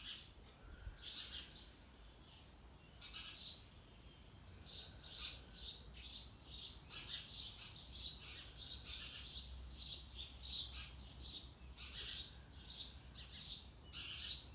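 Small birds chirping outdoors: short high chirps in quick runs, repeating throughout, over a faint steady low hum.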